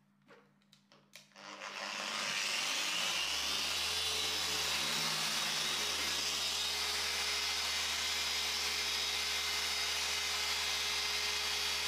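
A few faint clicks, then an electric paint polishing machine spins up over about two seconds and runs at a steady speed.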